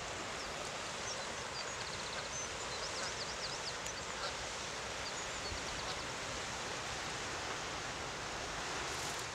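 Outdoor ambience: a steady rushing noise, with a few faint high chirps a couple of seconds in.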